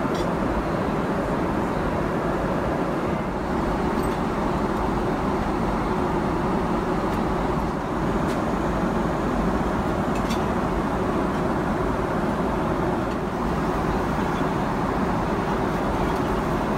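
Steady rushing cabin noise of a Boeing 777-200LR in flight, the engines and airflow heard from inside the cabin, with a few faint clicks.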